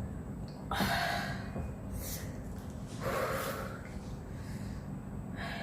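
A woman's loud breathy gasps and sharp exhales, several in a row, panting from the burn of ghost-pepper noodles.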